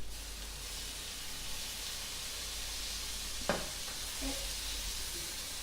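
Sausages frying in oil in a pan, a steady sizzle, with one sharp knock about three and a half seconds in.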